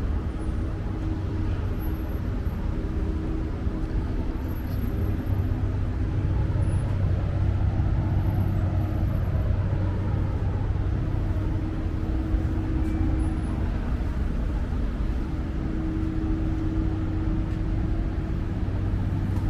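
Steady low hum over a constant wash of urban background noise, with no single event standing out.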